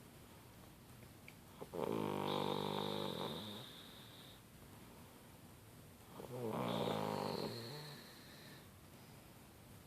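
A girl snoring: two snores in a slow rhythm, each lasting about two seconds, about four and a half seconds apart, with quieter stretches between.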